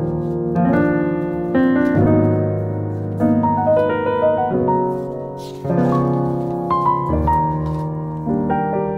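Background piano music: a gentle piece of chords and melody notes, a new chord struck about every second or so.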